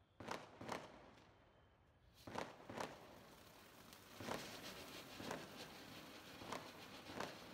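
Standard Fireworks 'Cheers' ground fountain firework, after two sharp clicks near the start, catches about two seconds in and sprays sparks with a steady hiss. Sharp crackles and pops come about once a second.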